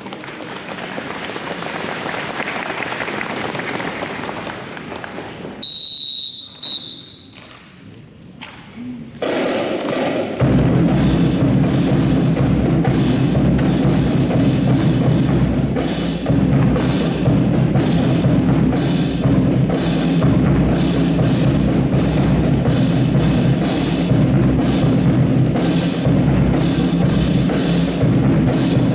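Drum-heavy music with a steady beat, starting about a third of the way in. Before it there is a stretch of noisy sound and a short, loud high tone.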